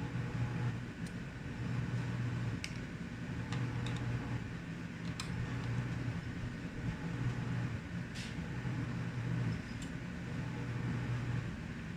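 A low hum that cuts out and comes back every few seconds, with scattered faint clicks of small screws and tools being handled on a laptop's plastic case.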